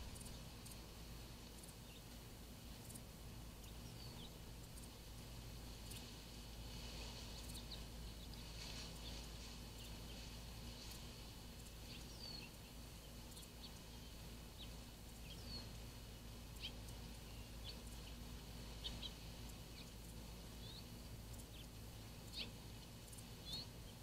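Faint outdoor ambience with a steady low hiss and hum, broken by scattered short, high chirps from distant small birds and a few soft clicks.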